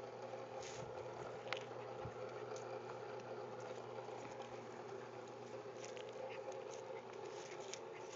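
Faint patter and small clicks of two small dogs playing (paws scuffling, mouthing a toy) over a steady background hum; the clicks come more often in the second half.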